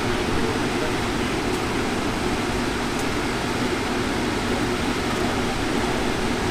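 Steady outdoor background noise: an even roar with no distinct events, holding the same level throughout.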